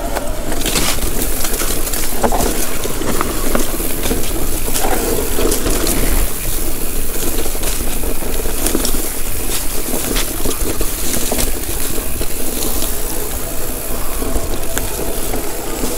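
Mountain bike being ridden down a dirt trail: a steady rushing noise of tyres and movement, broken by frequent knocks and rattles from the bike over rough ground.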